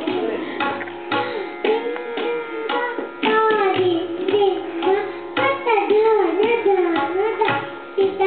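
Tabla played in teentaal: a quick run of sharp strokes, with the bass drum's pitch gliding up and down under them. The playing gets denser and louder about three seconds in.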